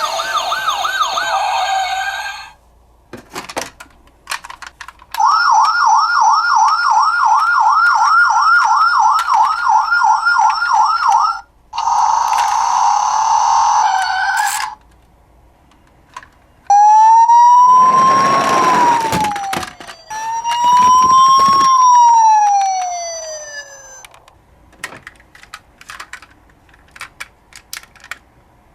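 A toy police car's electronic siren playing several patterns in turn: a rapid yelp warbling about three times a second for about six seconds, a shorter steadier tone, then two slow wails that rise and fall in pitch. Small clicks of handling come in the gaps between them.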